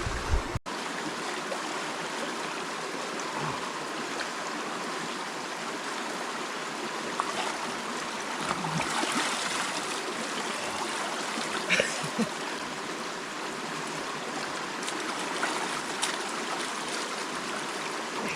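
River water rushing steadily over rocks, a fast, even flow.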